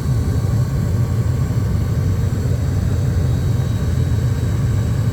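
Gas furnace running: a steady, even low rumble with a faint high whine above it.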